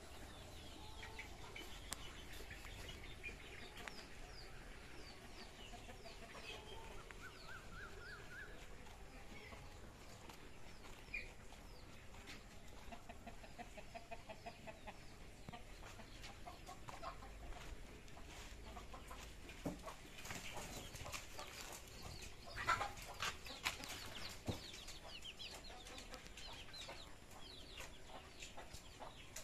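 Free-range chickens clucking faintly, with scattered short high chirps. A brief cluster of sharp knocks, about three quarters of the way through, is the loudest part.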